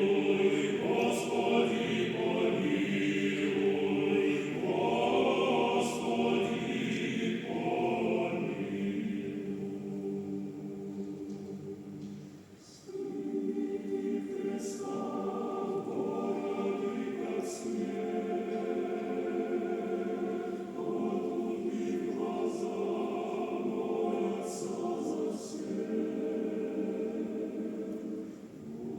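Male monastery choir singing in sustained chords. The sound dips briefly about twelve seconds in, then the choir comes back in.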